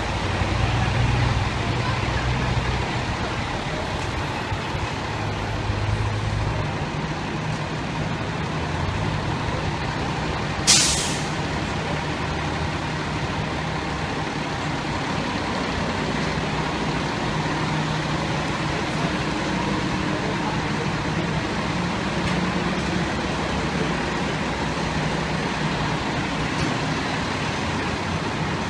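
Diesel fire engine idling at a steady rumble. About eleven seconds in comes one short, sharp hiss of air brakes.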